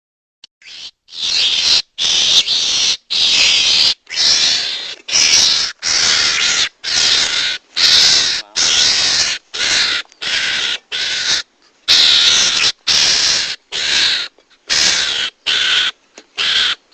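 Recorded mongoose lure call: harsh, raspy calls repeated about once a second, each lasting about half a second, beginning about a second in.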